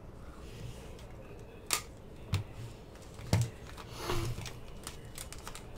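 Hard plastic trading-card case being handled: three sharp clicks a second or so apart, then a brief rustle of a thin plastic card sleeve about four seconds in.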